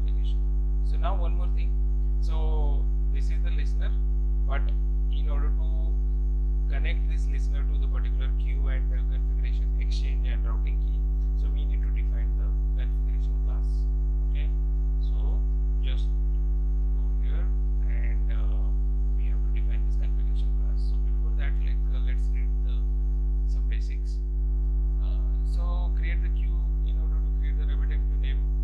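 Steady electrical mains hum with a stack of buzzing overtones, picked up on the recording, with faint brief clicks and ticks scattered over it.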